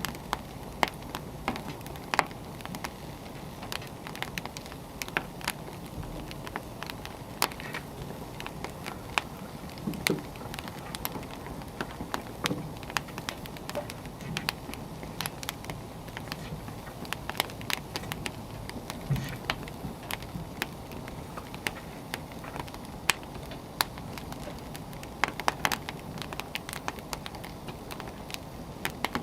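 Wood fire crackling: frequent irregular sharp pops and snaps of burning firewood over a steady low hiss.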